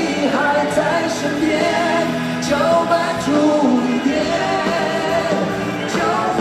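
Two male singers performing a Mandopop ballad live, with sustained sung lines over band accompaniment.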